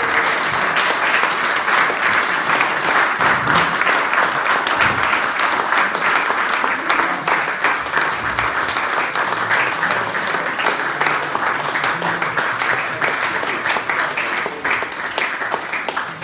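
A roomful of dinner guests applauding steadily, a dense patter of many hands clapping for an award winner.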